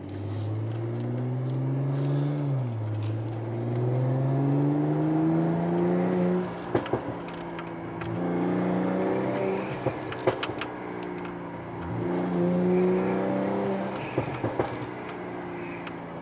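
Mercedes-Benz CLS450's turbocharged inline-six revved up three times, its pitch rising and holding, each rev followed by a short string of sharp pops and crackles from the exhaust as the throttle closes: the overrun burble of a pop-and-crackle ECU tune.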